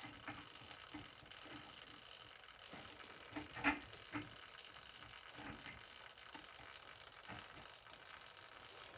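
Faint, scattered clicks and light knocks of parts being handled, the loudest a pair of knocks about three and a half and four seconds in.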